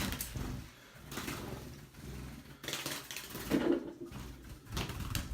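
Irregular knocks, clatter and rustling of things being bumped and moved about in a small room, as someone scrambles to grab a loose bird.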